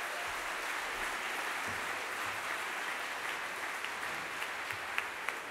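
Audience applauding: dense, steady clapping, with a few single claps standing out near the end as it begins to thin.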